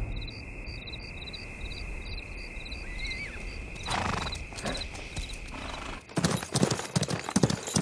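Galloping horses' hooves clattering, starting about six seconds in, over a low steady rumble with faint, evenly repeating chirps.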